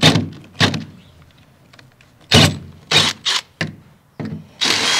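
Sharp metallic knocks and clanks of parts being handled against a steel dump-truck body, several in a row. Near the end a cordless drill runs steadily for about a second.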